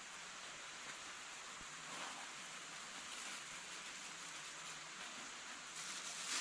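A steady, even hiss of outdoor ambience, with a plastic bag rustling near the end as it is handled.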